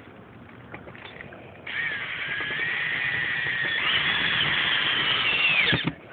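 Cordless drill driving a screw through a metal roof cleat. It starts just under two seconds in and runs for about four seconds, its whine stepping up in pitch partway through and winding down as it stops.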